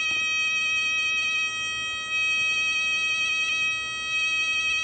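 A 555-timer oscillator sounds a steady, high buzzing tone through a small speaker. It wavers and dips in level twice as magnets are moved over the circuit's pickup coil, which induces a current that alters the tone.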